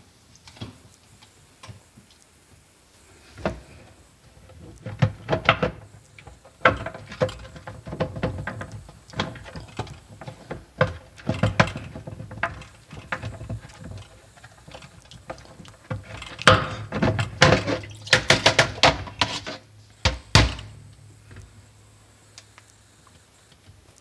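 Plastic filter-assembly parts of a GE QuietPower 3 dishwasher clicking, knocking and clattering as they are worked loose and handled in the tub, in irregular bursts that are busiest about two-thirds of the way through.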